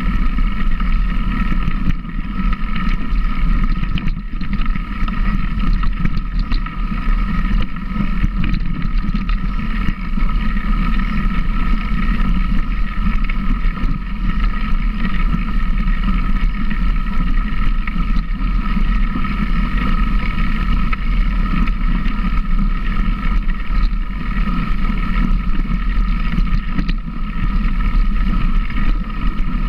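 An engine running steadily at an even pitch, with a heavy low rumble underneath.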